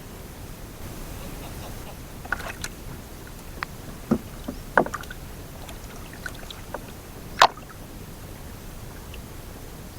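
Scattered sharp knocks and taps over a steady low hiss, around seven in all, the loudest one about seven and a half seconds in.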